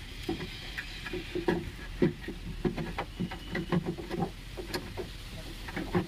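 Scattered small clicks and knocks of a metal tailgate lock latch being handled and fitted into the tailgate of a Maruti Suzuki Zen Estilo.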